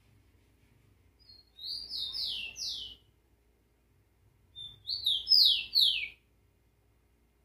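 Captive rufous-collared sparrow (tico-tico) singing twice: two short phrases of clear, downward-sliding whistled notes, the first about a second and a half in and the second, louder, about five seconds in.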